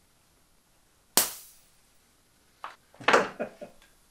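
A sharp pop about a second in, fading quickly, then several short clicks and hisses near the end, from the hand air pump's hose and fitting being handled on an RC jet's pneumatic landing-gear line charged to 80 PSI.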